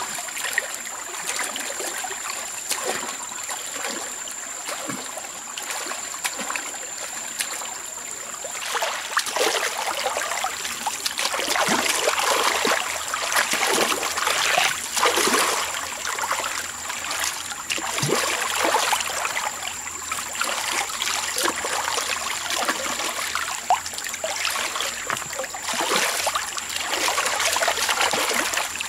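Stream water trickling and splashing over rocks, louder from about nine seconds in, with a thin steady high-pitched tone alongside.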